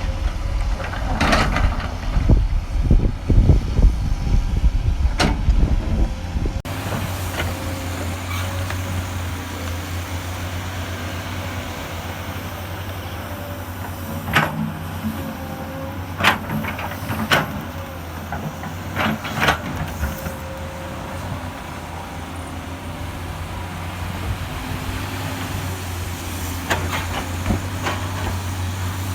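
Hydraulic excavator's diesel engine running, with a series of sharp knocks from the working machine. About seven seconds in the sound changes abruptly from a louder rumble with frequent knocks to a steadier engine note with occasional knocks.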